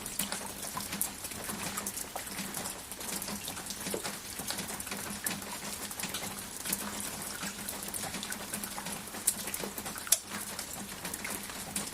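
Steady rain falling, with individual drops ticking sharply and irregularly over an even hiss.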